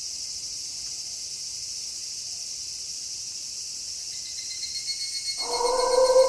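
Steady night chorus of crickets. About five seconds in, a wolf begins one long howl, holding nearly level in pitch.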